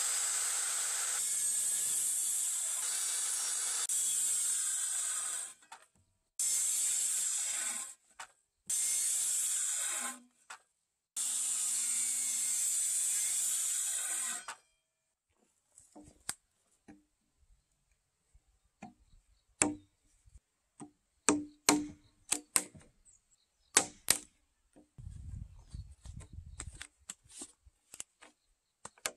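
Makita circular saw cutting a row of closely spaced kerfs across a timber beam, running in four long bursts through the first half. Then a wooden mallet knocks out the waste between the kerfs: sharp knocks at uneven intervals.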